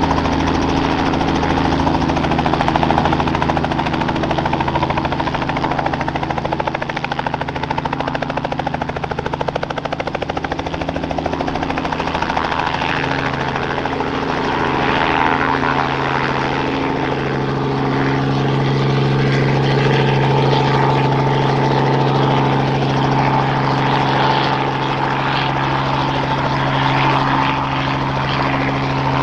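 Robinson R44 Clipper II helicopter lifting off and hover-taxiing, its rotor and six-cylinder Lycoming IO-540 piston engine running at flight power in a steady drone.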